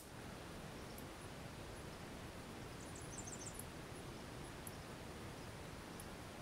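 Quiet outdoor background at a shooting range: a steady hiss with a quick run of about half a dozen faint, high chirps about three seconds in.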